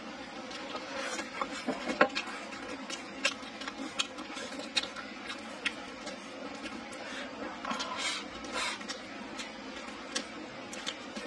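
A person chewing a mouthful of meat and rice with the mouth close to the microphone: many short, wet mouth clicks and smacks at an uneven pace.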